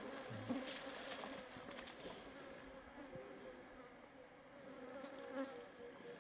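A flying insect buzzing: a faint, steady drone that holds one pitch.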